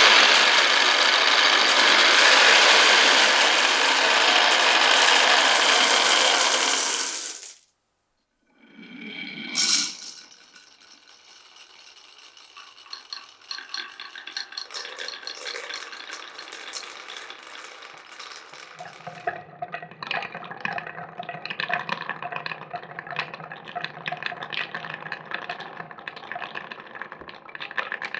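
Many glass marbles clattering through a wooden marble run: a loud, dense rattle that cuts off abruptly about seven seconds in. After a brief silence, marbles roll and click along wooden tracks and rails more quietly, with a low rolling sound joining about two-thirds of the way through.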